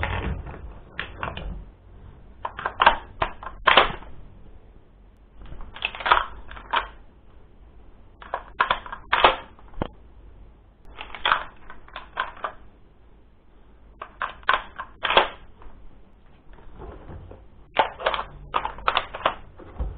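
VFC/Umarex airsoft G3 replica being reloaded over and over: clusters of sharp plastic-and-metal clacks as the magazine is swapped and the charging handle is pulled back and slapped shut, a burst of several clacks every two or three seconds.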